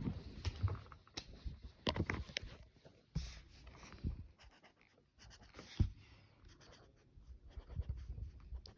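Colouring strokes on paper, an irregular run of short scrapes and taps, with heavy breathing close to the microphone.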